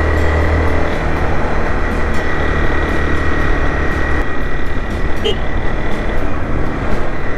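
Honda CBR 250R's single-cylinder engine running steadily while riding at a constant speed.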